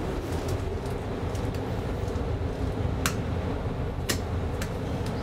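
Steady low hum of a 1974 KONE traction elevator car, with a faint steady tone above it and three sharp clicks in the second half, one as a car-panel button is pressed.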